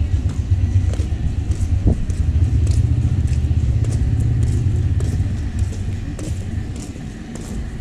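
Engine of a motorcycle tricycle running close by with a steady low rumble, fading from about five seconds in.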